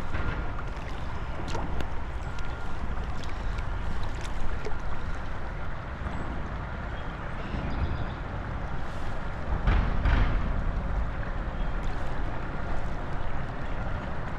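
Steady outdoor rush of wind buffeting the microphone over flowing river water, with a stronger gust about two-thirds of the way through.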